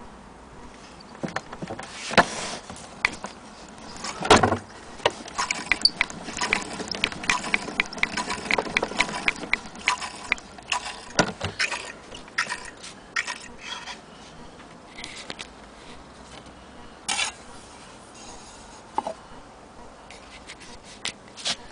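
Maxitone portable gramophone's spring motor being wound by its hand crank: dense irregular clicking and rattling of the crank and winding gears, with a loud knock about four seconds in. The clicking thins out to occasional clicks and knocks about two-thirds of the way through.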